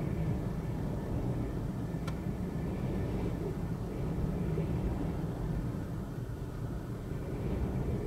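Storm wind blowing hard against the microphone as a steady low rumble, with waves breaking and spray washing over rocks. A brief click comes about two seconds in.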